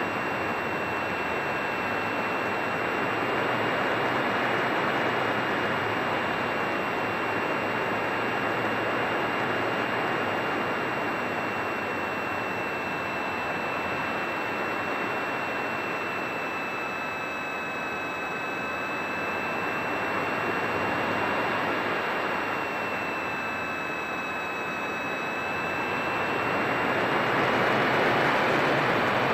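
Radio-controlled model airplane's motor and propeller heard from a camera mounted on the plane: a steady high whine over rushing wind noise. The pitch dips slightly twice in the second half, and the sound grows louder near the end.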